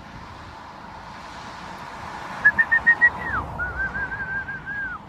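A person whistling a short melodic phrase, starting a little over two seconds in: a quick run of high notes ending in a falling slide, then a run of lower, wavering notes that also drops away at the end.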